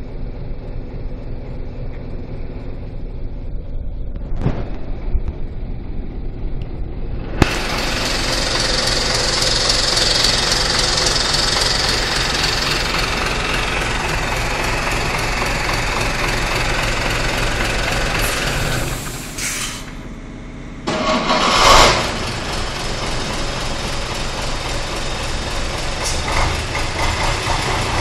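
Karosa 700-series bus's rear-mounted diesel engine running. It grows suddenly much louder and brighter about seven seconds in, drops away briefly about twenty seconds in, then returns with a short loud burst and runs on.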